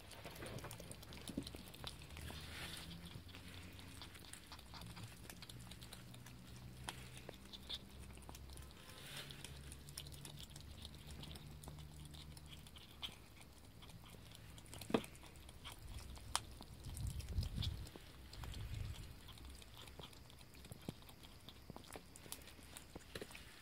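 Ferrets chewing and gnawing raw bone-in chicken wings and legs, crunching on the bones with many scattered sharp cracks, the loudest about two-thirds of the way through. A faint low hum runs underneath.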